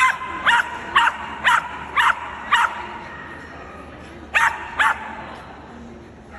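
A dog barking sharply in quick succession: six barks at about two a second, then two more after a short pause.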